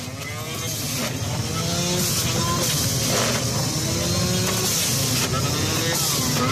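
Electric juicer motor running steadily as carrots are pushed into it and juice pours out, with background voices. The sound fades in over the first second.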